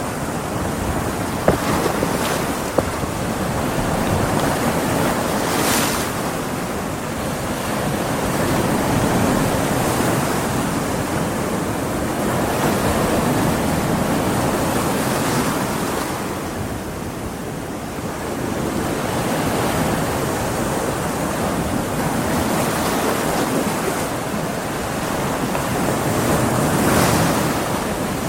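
Stormy sea: big ocean waves breaking and washing on a beach, a continuous rush of surf that swells and eases every few seconds. A few sharper crashes and hissing sprays stand out, one of them near the end.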